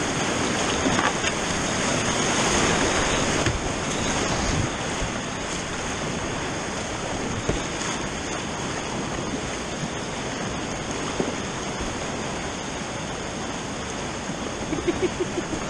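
Whitewater rapids rushing steadily around a kayak, heard close up from the boat, a little louder in the first few seconds, with a few short sharp splashes.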